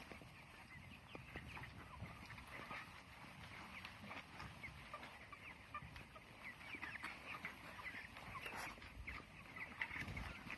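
A flock of broiler chickens about three weeks old, many birds cheeping and clucking at once in a continuous dense chatter of short overlapping calls.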